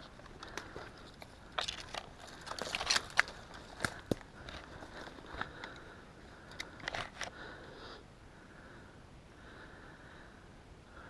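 Irregular clicks, crunches and knocks, most of them in the first seven seconds, then only a low steady background.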